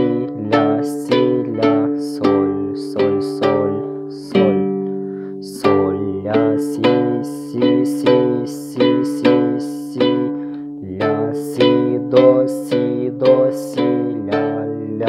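A two-string Kazakh dombra is strummed, playing a folk küy melody in steady strokes, about two a second. A little over four seconds in, one chord is left to ring longer.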